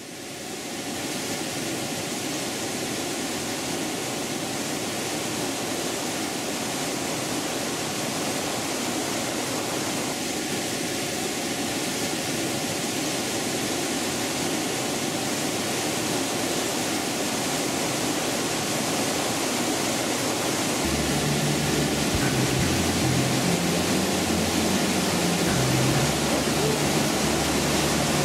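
Waterfall's steady rushing roar, growing gradually louder, with a deeper rumble joining in about three quarters of the way through.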